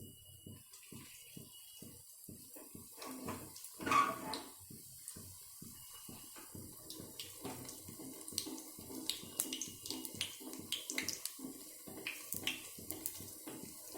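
Smiley snacks frying in shallow hot oil in a kadai: a steady sizzle dotted with many small crackles and pops, swelling louder for a moment about four seconds in.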